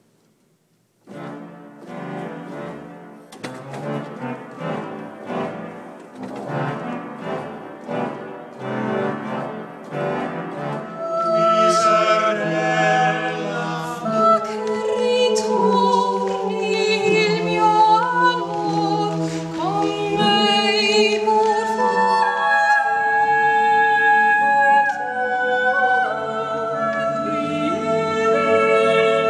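Small mixed choir of men's and women's voices singing, starting about a second in and growing louder about a third of the way through into long held chords.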